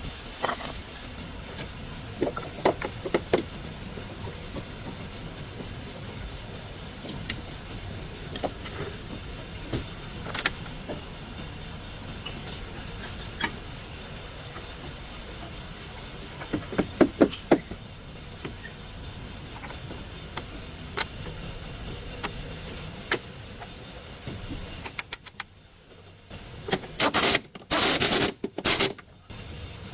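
Steady background noise with scattered sharp clicks and knocks, a few in quick clusters, then a short drop almost to quiet followed by several loud rushing bursts near the end.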